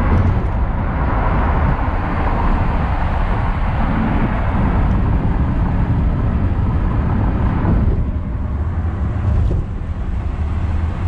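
Steady road noise of a car driving at highway speed, heard from inside the cabin: tyre and engine noise with a deep rumble, easing slightly near the end.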